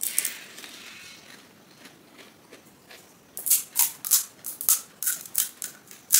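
Crisp panipuri (golgappa) shells crunching: a soft wet crunch at the start, then a quick run of about eight sharp crackles over the last three seconds, the loudest at the very end.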